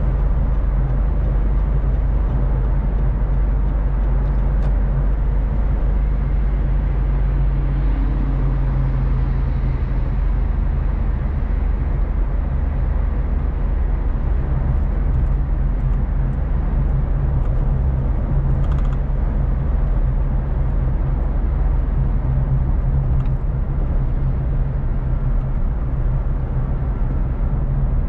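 Car driving at a steady speed: a continuous low drone of engine and tyre noise.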